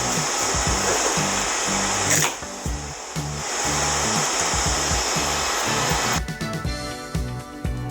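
Hot air rework station blowing a steady hiss that cuts off about six seconds in, over background music.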